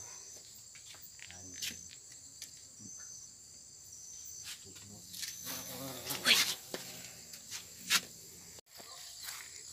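Insects chirping steadily in a high-pitched trill, with short repeated chirps over it. Several brief rustles and knocks from the phone being handled, the loudest about six seconds in and again near eight seconds.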